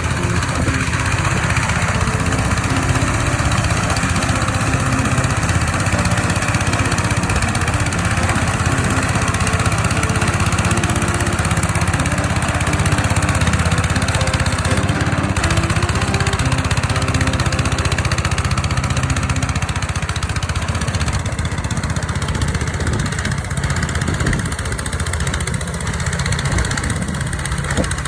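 Engine of a rice-field plough running steadily without letup.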